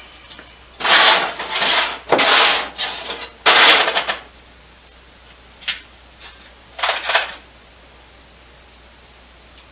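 A run of short scraping, rubbing sounds in the first four seconds, then two or three brief, fainter scrapes a few seconds later.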